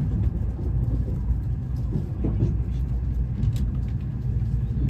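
Steady low rumble of a Shinkansen bullet train running, heard from inside the passenger cabin, with a few faint ticks.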